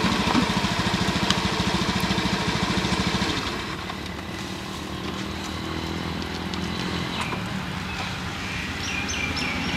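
A small engine idling with a rapid, even pulse, which drops about three seconds in to a quieter, steadier hum.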